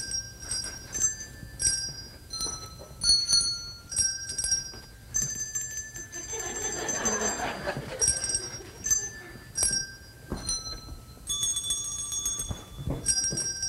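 Handbells rung one note at a time, each bell struck and left ringing, the pitch changing from note to note as they pick out a slow tune.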